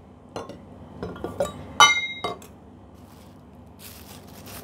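Stainless steel containers clinking against each other as they are lifted apart and set down: several light clinks, the loudest about two seconds in, ringing briefly. Near the end, wrapping rustles.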